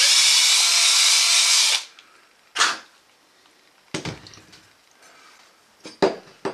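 Cordless drill spinning a countersink bit in a leg hole of a thin metal clock case for just under two seconds, deburring the hole's sharp edge, with a brief second burst a moment later. Then a knock and some clatter as the drill and parts are set down.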